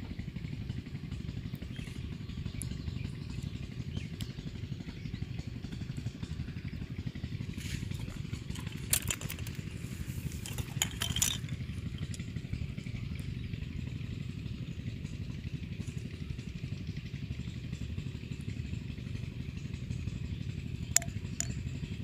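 Steady low drone of an unseen motor, with a few sharp clicks near the middle and one near the end.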